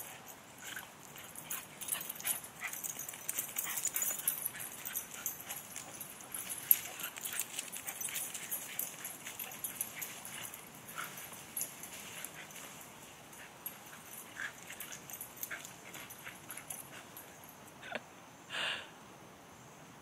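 Basset hound and cockapoo play-wrestling, with brief whimpers and yips and one louder short whine near the end.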